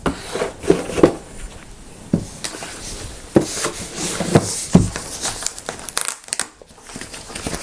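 Packaging crinkling and rustling, with a few short knocks and thuds, as a boxed mechanical keyboard is handled and unwrapped.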